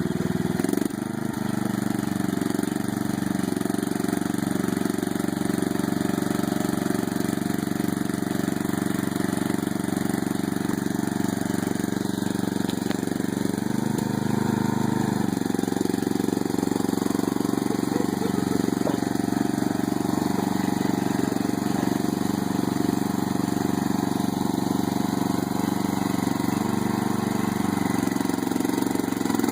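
Lawn mower engine running steadily, with a brief change in pitch about halfway through.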